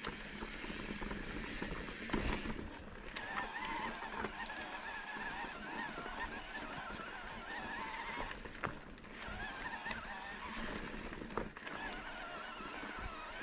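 Electric mountain bike's motor whining under load on a steep climb, in a steady, wavering whine, with scattered clicks and knocks from the bike rolling over rough trail.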